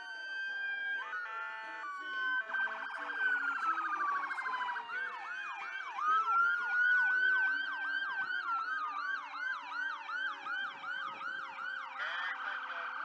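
Several emergency-vehicle sirens on passing fire trucks and other emergency vehicles sounding at once: slow rising and falling wails layered with a rapid warble and, from about halfway through, fast yelps about two a second, with another siren joining near the end.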